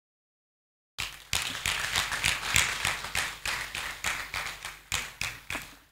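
A seated crowd of monks clapping. The applause starts abruptly about a second in and thins out, dying away near the end.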